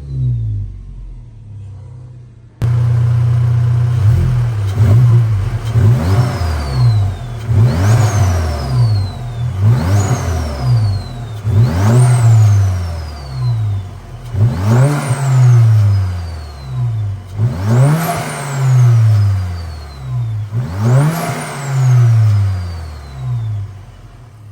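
Volkswagen Golf GTI engine fitted with an APR DTR6054 turbocharger, revved up and let fall about seven times. Each rev brings a high turbo whistle that climbs quickly as the turbo spools and then falls away slowly as the revs drop. The engine is quieter at first and then jumps abruptly louder about two and a half seconds in.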